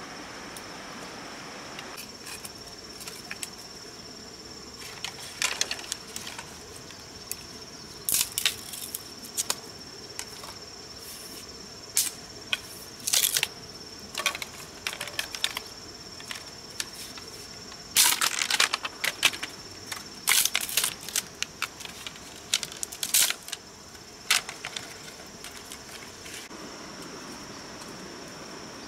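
Steady high-pitched insect trilling, crickets or similar. Over it come irregular bursts of crackling and rustling from gear or material being handled, busiest in the middle of the stretch.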